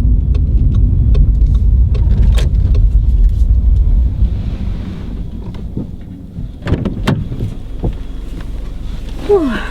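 Car on the move, heard as a steady low rumble of road and engine noise that dies down from about four seconds in. There are a couple of knocks near seven seconds.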